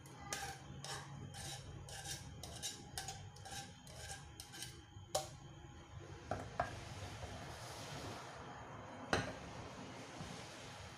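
Metal tongs clicking repeatedly against a cooking pot, about two or three clicks a second, as noodles are lifted out. A few louder knocks of metal on the pot follow, with a stretch of soft rushing as broth is poured from the pot into a bowl.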